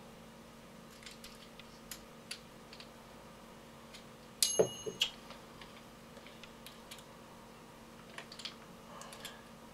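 Light scattered clicks and taps of small metal parts being handled, with a sharp metallic clink that rings briefly about four and a half seconds in, followed by two lighter knocks.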